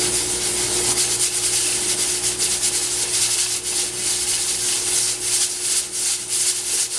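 Stovetop pressure cooker venting steam through its pressure valve with a loud, rough hiss that wavers in strength: it has come up to pressure on high heat.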